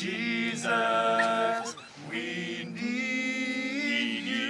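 A group of voices singing a cappella, holding a few long notes without words.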